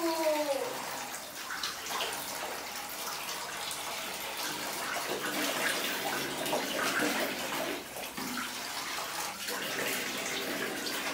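Bathtub tap running steadily into a plastic basin, with water splashing and being poured over a toddler's hair as it is washed.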